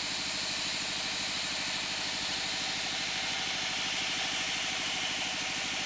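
Engine-driven sawmill band saw running steadily between cuts, with an even, fast engine beat and a hiss over it.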